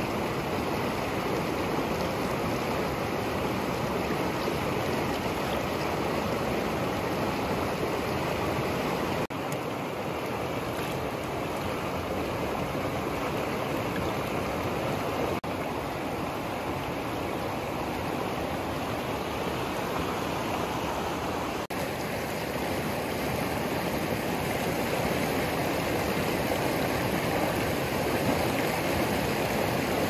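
Shallow, fast mountain stream rushing over rocks and stones: a steady rush of running water.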